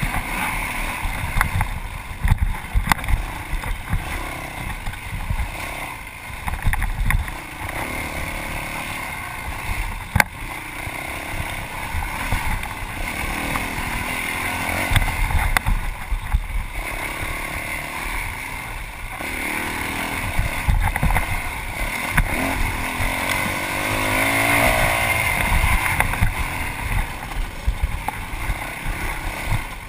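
Yamaha WR450F's single-cylinder four-stroke dirt-bike engine revving up and down with the throttle while riding, with frequent knocks and thumps from the rough ground.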